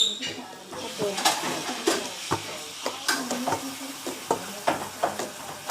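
Homemade slime being squished and pressed in the hands, with irregular wet clicks and pops as trapped air bursts.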